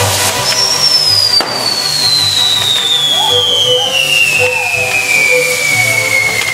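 Fireworks castle burning with a steady hiss and crackle, and a single firework whistle that falls slowly and evenly in pitch for about six seconds. A sharp crack comes about a second and a half in.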